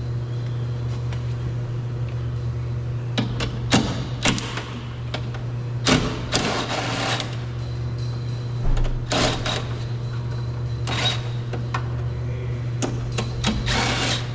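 Scattered metallic clicks, knocks and short rattles of hand tools working loose the two 10 mm bolts that hold the rear door glass inside the door, with a few denser runs of clicking. Under them runs a steady low hum.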